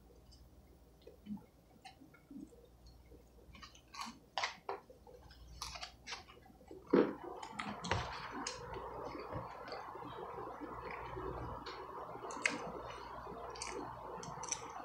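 A man chewing and eating, with scattered small clicks of cutlery and plate. About seven seconds in there is a sharp knock, and after it a steady hum runs on underneath.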